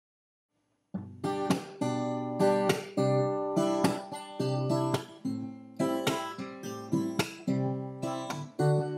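Intro music: strummed acoustic guitar, starting about a second in after a brief silence, with chords struck roughly twice a second.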